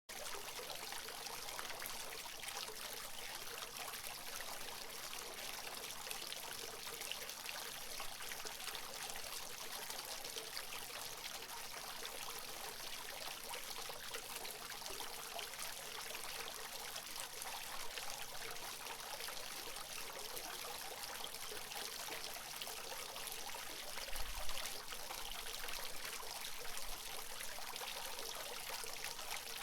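Water from a fountain trickling and splashing steadily, with a brief low thump late on.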